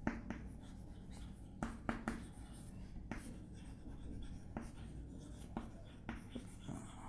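Chalk writing on a chalkboard: faint scratching of the chalk with irregular sharp taps as each letter is struck.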